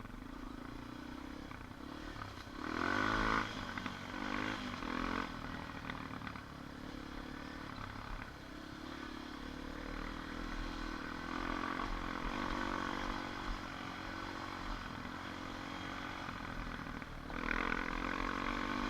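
ATV engine running as it is ridden along a trail, its pitch rising and falling with the throttle, with short louder revs about three seconds in and again near the end.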